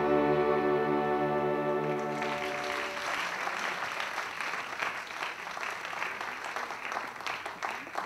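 An orchestra holds its final chord, which fades out about two to three seconds in, and audience applause takes over, thinning out near the end.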